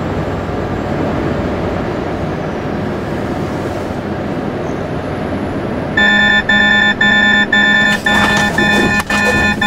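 Steady cab and road noise of a Volvo truck driving. About six seconds in, a loud pulsing warning tone starts, about two beeps a second: the truck's forward collision warning, sounding as it closes on a slower car ahead. Sharp clicks join in over the last couple of seconds.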